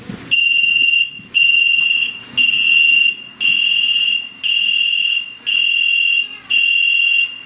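Electronic alarm beeping: a loud, high, single-pitched beep of just under a second, repeated about once a second, seven times.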